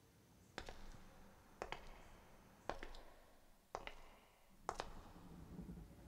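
Five sharp clicks, evenly spaced about a second apart, each followed at once by a smaller echoing click, over a faint low room hum.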